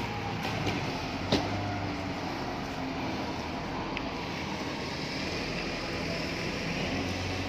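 Steady low rumble of heavy vehicles and machinery, with a sharp knock about a second in.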